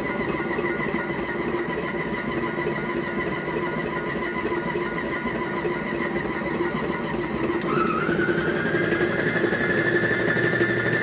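Mozano planetary stand mixer running empty, its motor and gearing giving a steady whine. About three-quarters of the way through, after a couple of clicks, it steps up to a higher speed: the whine glides up in pitch, settles higher and gets a little louder.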